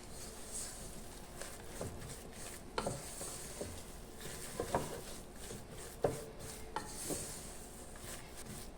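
Spoon stirring a thick flour-and-cornmeal dough in a pan. The stirring makes a soft scraping, with about half a dozen irregular knocks of the spoon against the pan.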